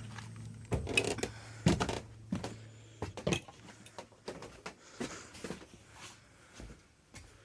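Scattered knocks, taps and rustles from hands working in the refrigerator while a thermistor wire is fed through a hole, the loudest about a second in. A steady low hum is heard under them and fades out about three seconds in.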